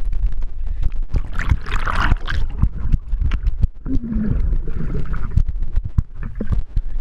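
Swimming-pool water splashing and gurgling as someone swims, with a steady low rumble and many small knocks; the loudest splash comes about two seconds in.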